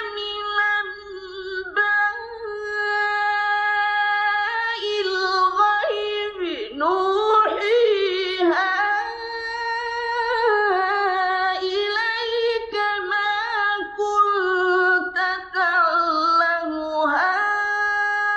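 Male Qur'an reciter chanting in the melodic mujawwad style: a single high voice holding long drawn-out notes, with ornamented glides up and down between them.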